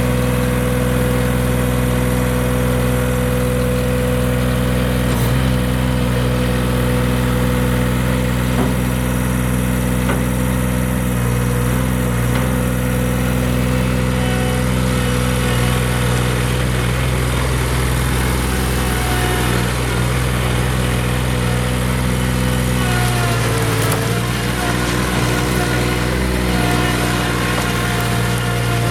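New Holland L255 skid steer loader's engine running steadily, its pitch dipping briefly about 23 seconds in and then coming back up.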